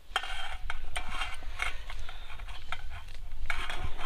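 Cauliflower florets being pushed off a stainless steel plate into a steel bowl of salted water: a string of light clinks and knocks of the steel plate against the bowl and of the florets dropping in.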